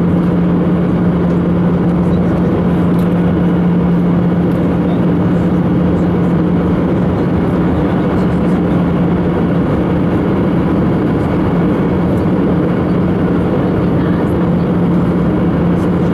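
Airbus A319 cabin noise heard from a window seat over the wing during descent on approach with the flaps extended: a steady rush of airflow and jet engine noise with a constant low hum, which eases a little midway and comes back near the end.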